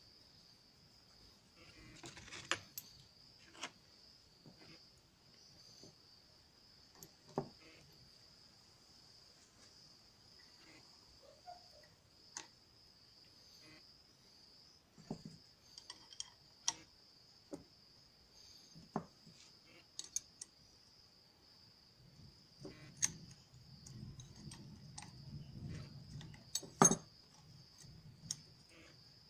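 Metal hand tools, open-ended spanners and sockets, clinking and knocking against each other and a wooden bench: scattered sharp clicks, busiest and loudest in the last few seconds. Under it, crickets chirr steadily at a high pitch.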